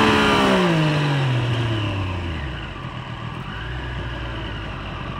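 Triumph Street Triple 765 RS inline three-cylinder engine heard from on board, its revs falling steadily as the bike slows down, then settling into a low, quieter rumble after about two and a half seconds.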